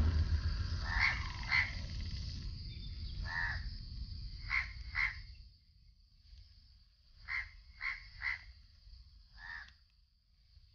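Short animal calls, heard nine times in ones and twos, over a steady high hiss. A low thump at the start is followed by a rumble that dies away about halfway through.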